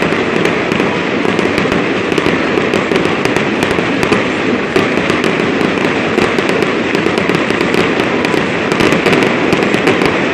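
Fireworks display: aerial shells bursting in glittering stars while ground fountains spray, making a dense, unbroken run of pops and crackles at a steady loudness.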